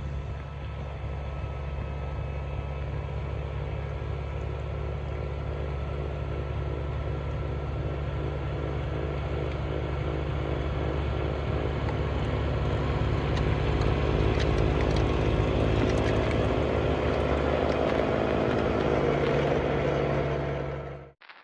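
Kubota BX compact tractor's three-cylinder diesel engine running steadily while working a rear snow blade. It fades out just before the end.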